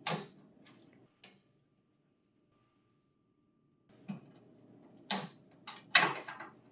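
Plastic clicks and short scrapes as the upper cover of a Lexmark 550-sheet paper tray is unclipped and lifted off. There are a few sharp clicks at the start, a pause of about two and a half seconds, then a cluster of clicks and rubs near the end.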